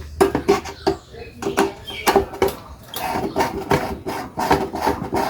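Hand tool clicking and scraping on the metal parts of a rice cooker being taken apart: a run of short, sharp strokes that turns into an even rhythm of about three a second partway through.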